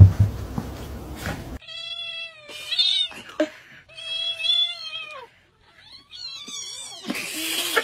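A thump and muffled rustling, then a cat yowling: four long, wavering meows over about five seconds.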